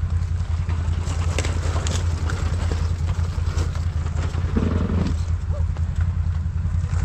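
ATV engine running steadily with a low throb, with scattered knocks and rattles throughout.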